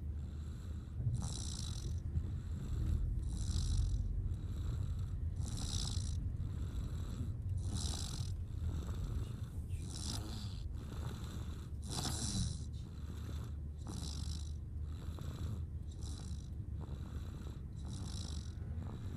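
A toddler snoring loudly in sleep, a hissing snore on each breath about every two seconds, over a steady low hum.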